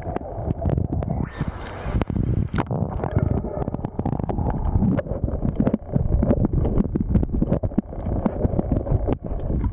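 Underwater sound picked up by a camera held below the surface: a low rumbling wash of moving water with frequent small clicks and crackles, and a brief rushing hiss about a second and a half in.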